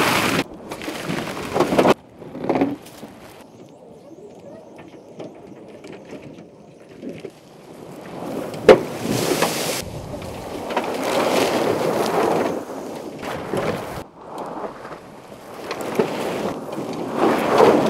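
Dual-motor electric Ford F-150 Lightning Switchgear on 37-inch tires driven hard on dirt: tires churning and throwing dirt in gusts, with wind on the microphone and no engine note. One sharp knock stands out about nine seconds in.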